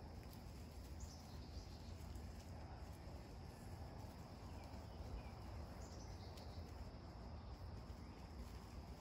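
Faint outdoor ambience: a steady high insect drone, with two short chirps gliding downward in pitch, about a second in and again about six seconds in, over a low rumble.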